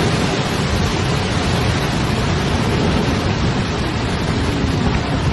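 Thunderstorm noise: heavy rain and wind in a steady, dense rush with a deep low rumble.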